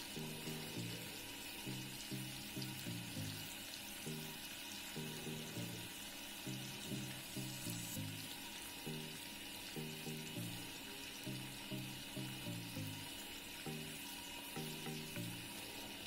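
Parrot fish frying in oil in an aluminium wok, a steady sizzle. Background music of short low notes in a steady rhythm plays over it.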